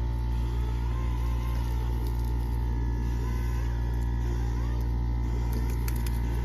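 A steady low mechanical drone, like an engine running, with faint steady high tones over it.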